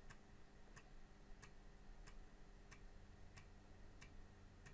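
Panasonic JU-253 Amiga 3.5-inch floppy drive's read head stepping, a faint sharp click about every two-thirds of a second, over a low steady hum. The drive is reading the disk track by track as it loads: the repaired drive is working.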